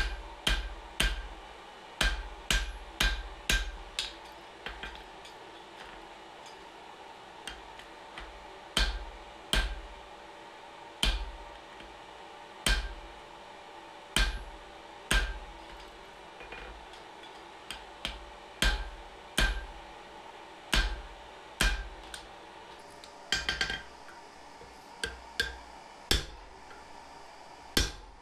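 Hand hammer striking leaf-spring steel on an anvil while drawing out a tang. Single blows come every half second to second and a half, each with a short metallic ring. A quick flurry of lighter blows comes near the end, over a steady hum.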